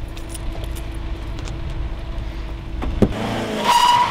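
Car engine running steadily, then the car pulling away with a rising engine note. A sharp knock comes about three seconds in, and a brief loud high squeal near the end.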